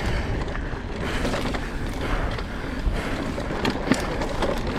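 Electric mountain bike riding up a rocky technical climb: a steady rumble of tyres and drivetrain over dirt and rock, with scattered sharp clicks and knocks from the chain and frame.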